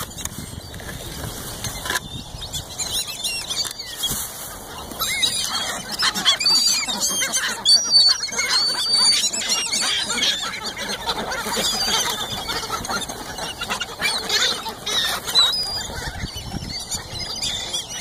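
A mixed flock of white ibises, black-bellied whistling ducks and gulls calling close by. Many overlapping high whistles and squealing calls thicken into a dense chorus from about five seconds in, then thin out near the end.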